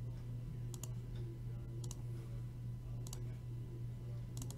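A few short, sharp computer mouse clicks, roughly one a second, some in quick pairs, over a steady low hum.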